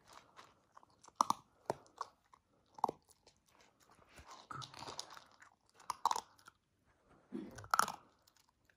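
Siberian husky puppy eating dry kibble from a plastic bowl: irregular crunching and chewing, with sharp crunches every second or so.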